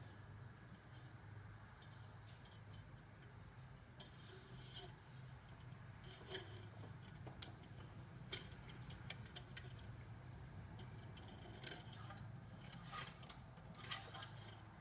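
Faint, scattered light clicks and scrapes of the engine oil dipstick being handled, pulled from and pushed back into its tube while the oil level is checked, over a low steady hum.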